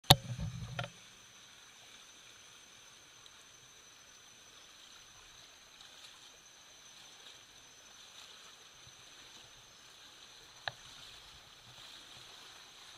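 Fast river current rushing faintly, with a thin steady high tone over it. A loud knock and a low rumble in the first second, and one sharp click about three-quarters of the way through.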